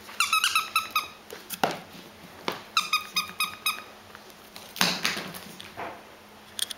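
A squeaky plush monkey toy squeaking as a mini chihuahua puppy chews it: two runs of rapid squeaks, about eight a second. A few short scuffs and thumps of the toy and paws on a hardwood floor come in between and after.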